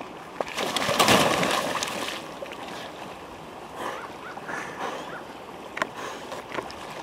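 Thin pond ice giving way under a man wearing a loaded pack: a big splash about a second in as he plunges through into the water. Water then sloshes around him, with a few sharp clicks.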